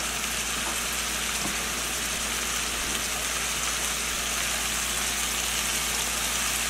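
Chicken-breast strips sizzling steadily in hot oil in a frying pan, over a steady low hum.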